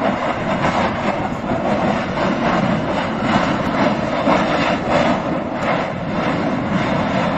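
Steady, loud rushing noise of Mount Etna erupting at the Voragine crater, with irregular surges.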